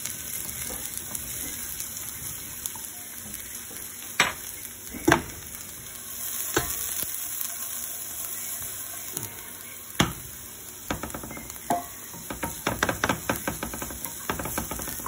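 Chopped garlic sizzling as it fries in a frying pan, with a wooden spatula stirring it. The spatula gives a few sharp knocks against the pan, then a quick run of taps near the end.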